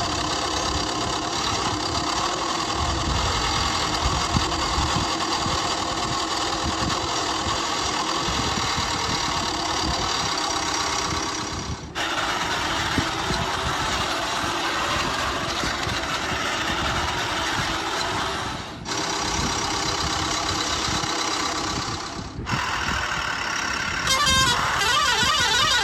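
Vehicle engine sound running steadily. It is broken off abruptly three times, as if cut between clips. Near the end a rapidly warbling tone comes in over it.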